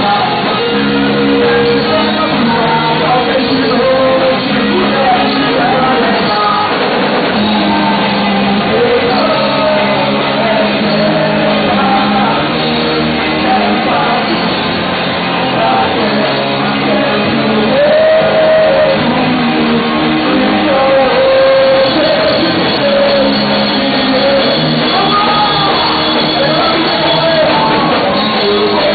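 Rock song with sung lead vocals over a full band, at a steady loud level.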